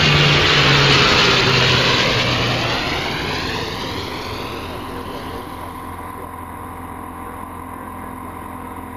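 Cabin noise of a small single-engine propeller airplane in flight: engine drone and rushing air, loud at first, then easing off over about five seconds to a steadier, quieter hum.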